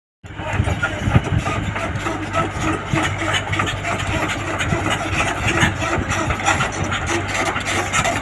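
Komatsu PC75UU mini excavator's diesel engine running steadily as the boom and bucket move, cutting in suddenly just after the start.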